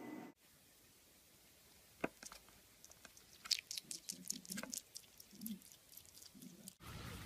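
An animal chewing something crunchy: faint, irregular crunches and clicks with a few soft low thumps, starting about two seconds in and thickest in the middle.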